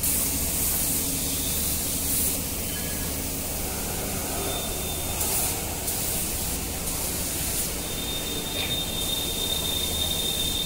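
Compressed-air gravity-feed paint spray gun hissing as automotive paint is sprayed, in passes of one to two seconds with short breaks between them. A steady low hum runs underneath.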